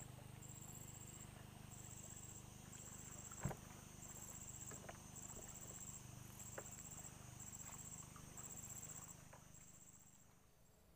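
Insects calling in a high, pulsing buzz, each pulse about half a second long and repeating a little more than once a second, stopping near the end. A single sharp knock sounds about three and a half seconds in.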